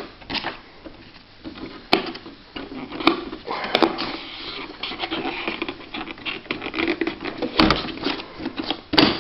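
Sharp clicks and light knocks as the controls and keys of a Quen-Data Executive 80 electronic typewriter are operated: about five distinct clicks spaced unevenly among quieter handling sounds.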